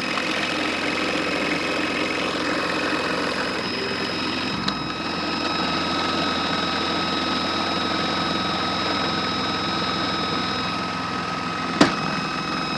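Modified Miele W1 toy washing machine running with snow in the drum: its small electric motor whirs steadily with a constant high whine as the drum turns. There is a faint tick about five seconds in and a sharp click near the end.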